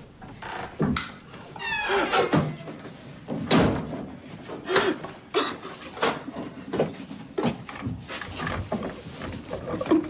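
A man's wordless, distressed cries and gasping breaths, in uneven bursts, with a few dull knocks among them.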